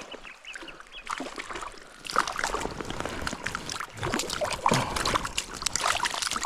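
Irregular splashing and sloshing of water in a shallow river, louder and busier from about two seconds in.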